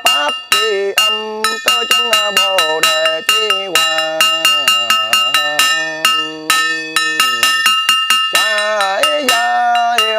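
Funeral rite chanting: a voice chanting a wavering, gliding melody over quick, steady strikes of ringing metal percussion, several strikes a second.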